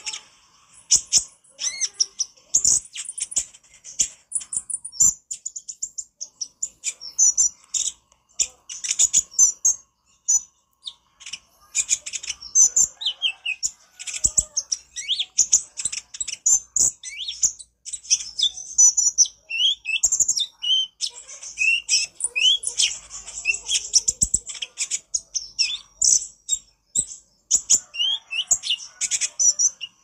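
Male Van Hasselt's sunbird (konin, 'kolibri ninja') singing a fast, chattering run of high-pitched chips mixed with short rising and falling notes, almost without pause.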